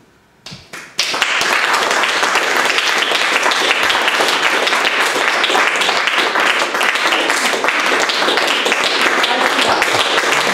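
Audience applauding: a few first claps, then about a second in the whole room breaks into steady, dense applause.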